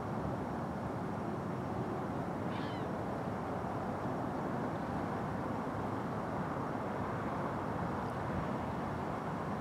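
Steady low outdoor rumble with no distinct events, and a single short, wavering bird call about two and a half seconds in.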